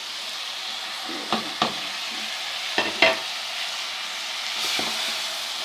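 Potatoes and capsicum frying in masala in a pan with a steady sizzle, stirred with a spoon that scrapes and clicks against the pan a few times in the first half.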